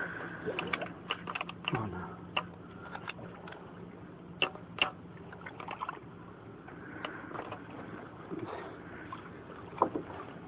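Scattered knocks and clicks of people moving about and handling gear in a fishing boat, over a steady low hum.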